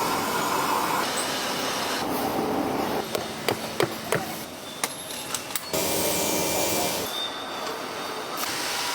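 Steady mechanical noise with a run of sharp clicks and knocks in the middle, its character changing abruptly a few times.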